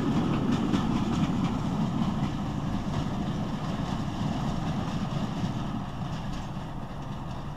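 Deltic Class 55 diesel locomotive and its sleeping car express, slowed by adverse signals, passing and drawing away. The wheels click over rail joints in the first few seconds, and the low engine and train rumble fades steadily as it recedes.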